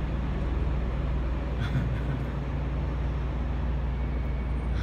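Steady low rumble of running machinery with a constant low hum, and a faint click a little under two seconds in.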